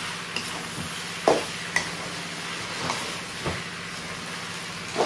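Boiled macaroni frying in masala in a metal kadai on high flame: a steady sizzle, with a metal spatula stirring and scraping through it and knocking against the pan in a few sharp clicks.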